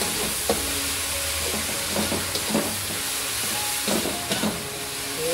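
Fermented shrimp and onions sizzling in oil in an aluminium wok, with a metal spatula scraping and knocking against the pan now and then as the mixture is stirred.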